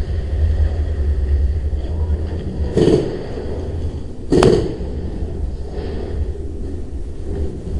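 Low rumble of wind and handling on the microphone of a moving, hand-carried camera, with two sharp knocks about a second and a half apart near the middle.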